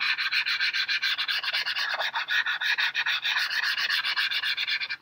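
A stick of charcoal scrubbed rapidly back and forth on a sheet of typing paper, shading in a solid patch: a fast, rhythmic scratchy rubbing of many even strokes a second.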